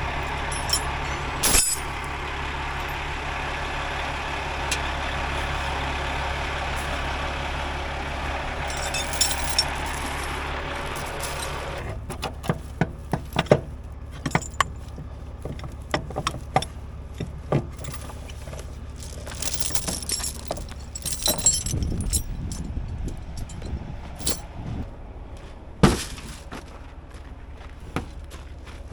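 A vehicle engine runs steadily with a low hum. About twelve seconds in, the louder running noise drops away and a string of sharp clicks, knocks and light rattles follows, with one loud knock near the end.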